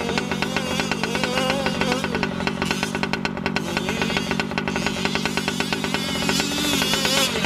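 Small gas two-stroke engine of a Losi 5ive-T 1/5-scale RC truck running with a rapid, even pulse, its pitch wavering up and down with the throttle.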